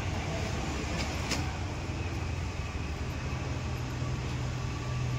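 A vehicle engine running nearby with a steady low rumble that grows stronger about three seconds in, with a couple of sharp metallic clicks about a second in.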